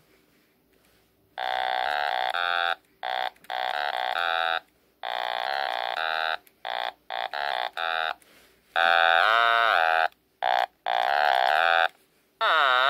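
A handheld blue ball-shaped toy noisemaker worked by a plunger rod sounds a string of buzzy, reedy notes in short bursts. Some notes are held, some waver, and several slide up and down in pitch as the rod moves.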